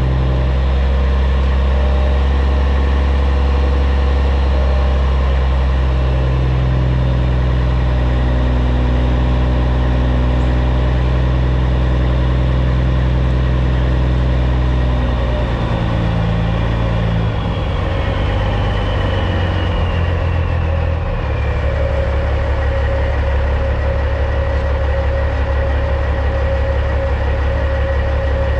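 Caterpillar C15 diesel of a Peterbilt 379 running steadily, then a little past halfway the revs drop and it settles to a low idle. As it does, the turbo's high whine glides slowly down in pitch.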